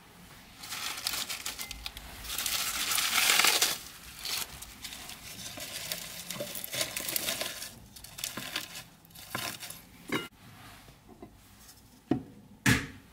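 Fresh spinach leaves rustling and crinkling as they are handled, torn and packed into a plastic mini chopper bowl, loudest in the first few seconds. A few sharp knocks near the end, the loudest just before the close.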